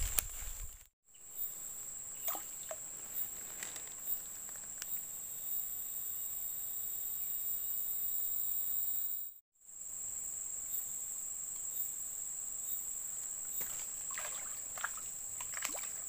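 Insects droning steadily at a high pitch, with a fainter, higher tone pulsing above it; the sound drops out briefly twice. Near the end come a few light splashes and rustles as a small fish is hooked at the surface.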